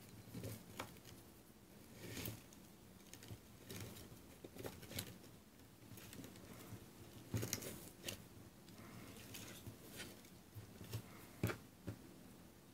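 Faint, scattered rustling and small ticks of tulle netting and bakers twine being handled while a bow is tied, with a couple of sharper taps.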